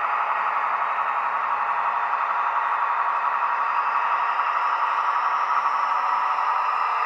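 Roco class 218 model diesel locomotive running with its sound decoder on: a steady simulated diesel engine sound from its small loudspeaker, thin with no bass, mixed with the running noise of the model's motor and wheels. The owner finds it does not sound much like a real 218 and lacks its characteristic rumble when pulling away.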